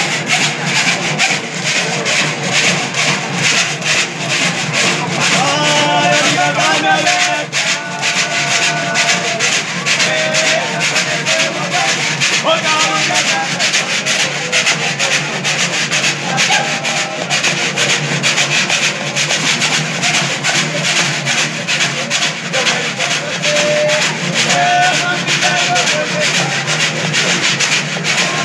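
Cururu ensemble playing: a ganzá, a notched bamboo scraper, rasped in a fast, steady rhythm over strummed violas de cocho.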